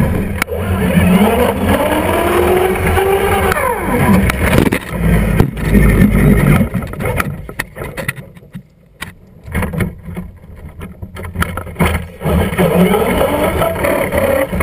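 Traxxas Slash RC truck's motor whining up and down in pitch as it drives and accelerates on asphalt, heard from the onboard camera. The sound drops away for several seconds past the middle while the truck lies upside down, then picks up again.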